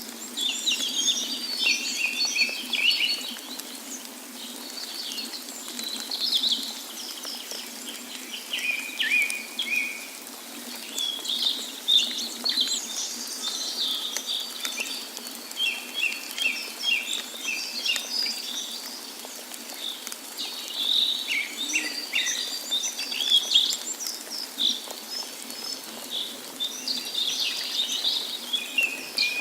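Several small birds chirping and trilling in overlapping calls over a steady rush of falling water.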